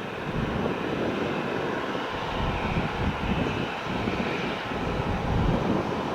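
Jet engines of an Airbus A320 running: a steady rushing noise with an unsteady rumbling low end.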